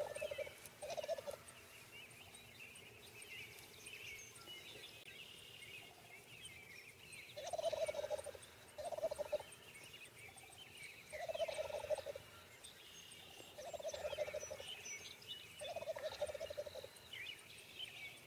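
Wild turkey toms gobbling: short rattling gobbles, two close together, then after a pause of several seconds about five more, one every couple of seconds. Small birds chirp faintly throughout.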